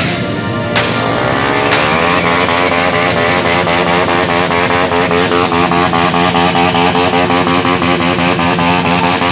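Loud, sustained mix of motorcycle engines revved high and held there, with distorted electric-guitar rock music.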